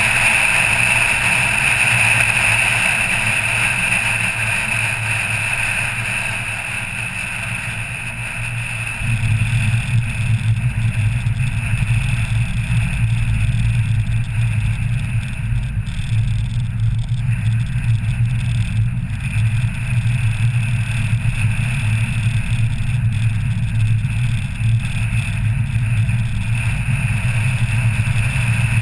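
Car on the move with steady engine and road noise. About nine seconds in, a louder low rumble sets in as the tyres roll onto cobblestones.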